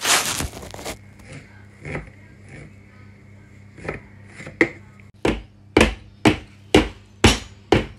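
A scrape and a few light knocks as batter is tipped and knocked out of a plastic mixing bowl into a cake tin. About five seconds in, the batter-filled metal cake tin is lifted and dropped on the kitchen worktop again and again, sharp knocks about two a second, to level the batter and knock out air bubbles before baking.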